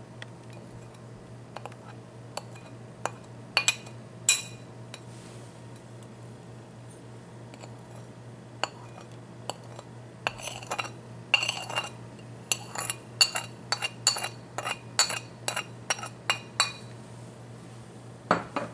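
A spoon clinking against a bowl while mixing fish with spices: a few scattered clinks, then a quicker run of clinks, about two a second, in the second half.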